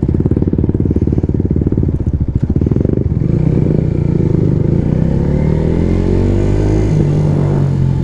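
Yamaha 125 cc single-cylinder motorcycle engine through a loud aftermarket exhaust: a choppy, rapid beat for about three seconds, then a smoother note that climbs in pitch as the bike accelerates.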